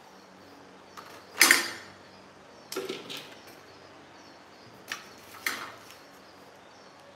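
A metal square and a long straightedge being handled and set down on cardboard sheets: a few short knocks and scrapes, the loudest about a second and a half in.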